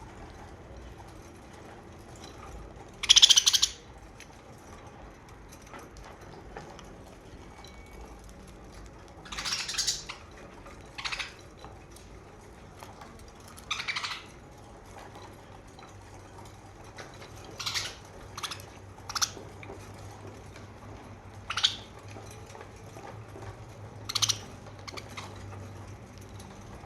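Budgerigars chirping in short, scattered calls with long gaps between them; the loudest is about three seconds in.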